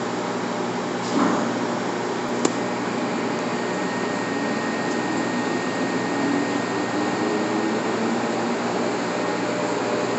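G&L 52-inch vertical turret lathe running with its table spinning: a steady mechanical hum. A single sharp click comes about two and a half seconds in, and a faint high whine sets in a second later and holds until near the end.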